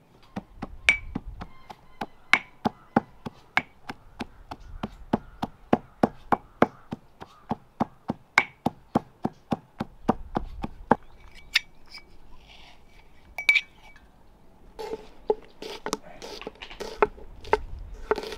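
Pestle pounding garlic in a small steel mortar: quick, regular metallic strikes, about three or four a second, that stop about eleven seconds in, followed by a few single clinks. From about fifteen seconds in, a kitchen knife chops on a wooden cutting board in a fast, even rhythm.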